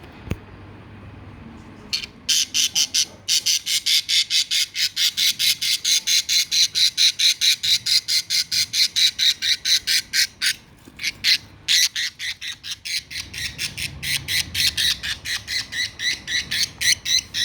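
A bird giving short, shrill calls repeated rapidly, about four or five a second, starting about two seconds in, with a brief break near the middle before the calling resumes.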